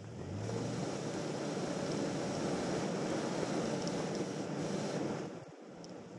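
Wind and road noise on a hood-mounted camera's microphone as an off-road vehicle drives a rocky dirt track: a rushing noise that swells in just after the start, holds for about five seconds, then drops away abruptly.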